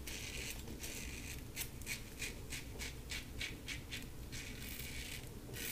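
LASSCo BBS-1 stainless steel safety razor with a Gillette Silver Blue blade scraping through lathered stubble on the neck and jaw in an against-the-grain pass. It makes short, faint rasping strokes about three times a second, with a pause and then a longer stroke near the end.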